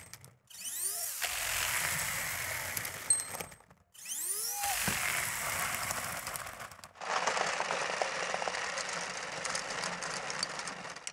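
Lego Technic flywheel-driven tracked vehicle climbing a slope of loose granules: its plastic tracks, gears and flywheel make a steady clattering rattle. The rattle comes in three takes separated by short breaks, with a brief rising whir after each of the first two breaks and a denser clicking rattle from about seven seconds in.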